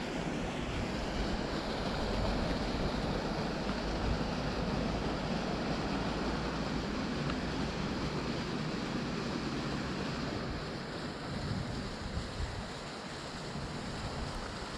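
Steady rushing of a river's flowing water, with wind buffeting the microphone.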